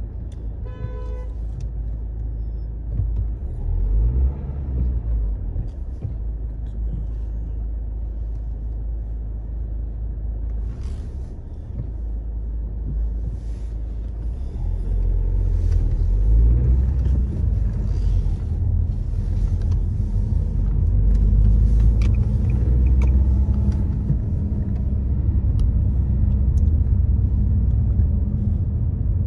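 Low engine and road rumble of a car driving, heard from inside the cabin, growing louder about halfway through as it pulls away onto the main road and picks up speed. A short pitched tone sounds about a second in.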